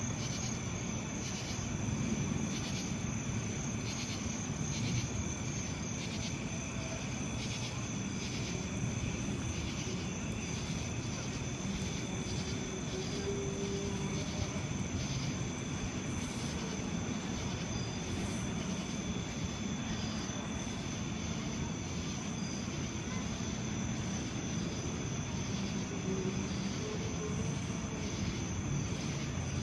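Night insects calling in steady high shrill tones with an even chirping pulse that fades out about ten seconds in, over a steady low rumble.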